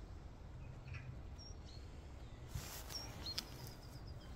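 Outdoor ambience: a few short, high bird chirps and a quick trill near the end, over a faint low steady rumble.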